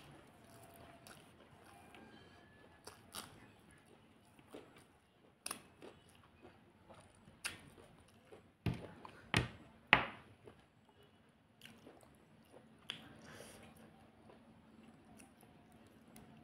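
Close-up eating sounds: chewing and mouth clicks with fingers working rice and chicken curry, made up of scattered short sharp clicks, three louder ones in quick succession about nine to ten seconds in.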